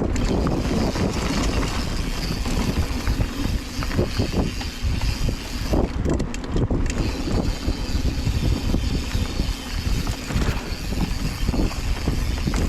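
Mountain bike riding fast down a dirt singletrack trail: tyres rolling and the bike jolting and rattling over bumps, with wind buffeting the microphone.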